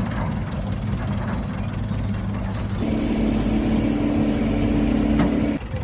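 Engine sound of an RC model truck running steadily, with a steadier, higher hum that joins about halfway and cuts off suddenly near the end.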